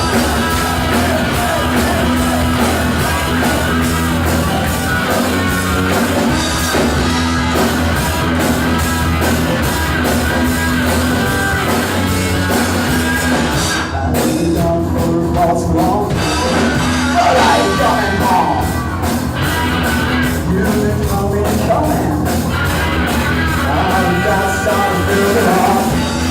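Live rock band playing: drum kit, electric guitars and bass, with a lead voice singing over them in parts.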